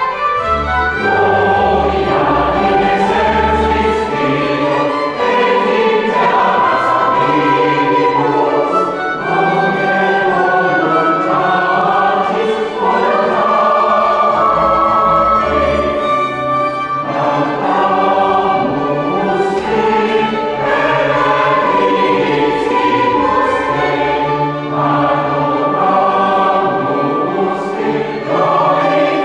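Church choir singing a mass setting built on Christmas carols, in harmony over sustained low organ notes.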